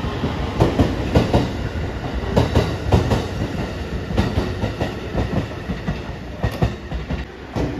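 Marine Liner rapid electric train (JR Shikoku 5000 series) moving past along the platform as it departs, its wheels clacking irregularly over rail joints over a steady rumble.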